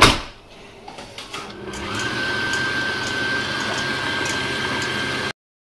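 Electric stand mixer with a balloon whisk beating egg whites in a stainless steel bowl. A sharp click at the start, then the motor winds up to a steady run with a high whine, and the sound cuts off suddenly near the end.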